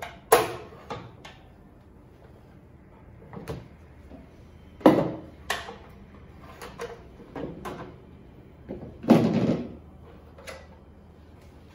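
Hard plastic stand-mixer housings being handled and fitted together: a string of clicks and knocks, with two louder sliding clatters about five and nine seconds in.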